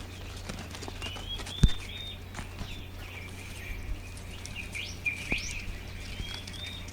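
Small birds chirping over and over in short, high calls. A sharp knock comes about one and a half seconds in and a softer one about five seconds in, over a low steady hum.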